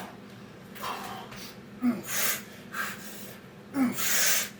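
A man breathing hard from exertion during burpees: a series of sharp, noisy breaths, loudest about two seconds in and again near the end.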